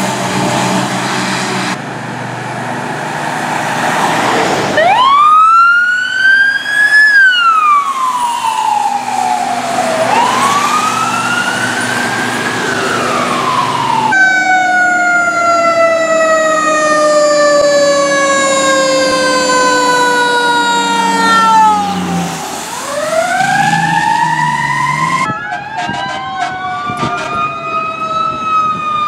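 Emergency-vehicle sirens wailing past, cut together from several responses. Each wail rises quickly and falls away slowly, and in the middle there is one long, slow downward slide of pitch.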